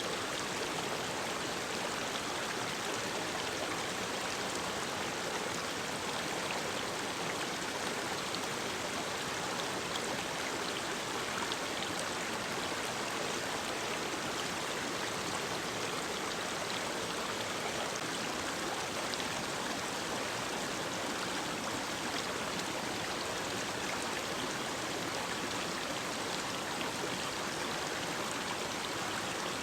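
Mountain stream running, a steady, even rush of water.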